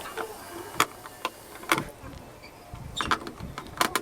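Screws being driven into the plastic back casing of an A4tech keyboard with a screwdriver: scattered sharp clicks and creaks, with a quick run of clicks near the end.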